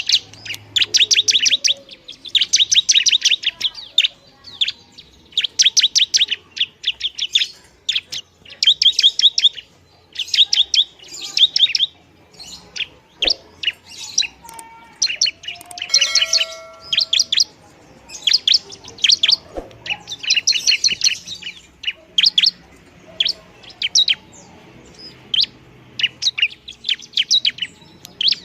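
Bar-winged prinia (ciblek) calling busily: rapid trains of sharp, high chip notes in bursts of about a second, repeated one after another.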